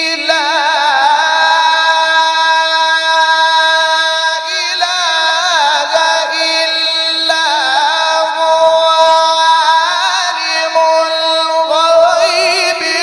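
A male Quran reciter's voice in long, melismatic tajwid elongation: one held note after another, ornamented with rapid wavering turns of pitch and carried without a pause.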